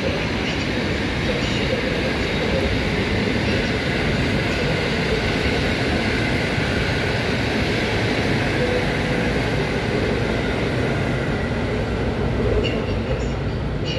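A train moving along the track at a station, making a steady, even rumble of running noise.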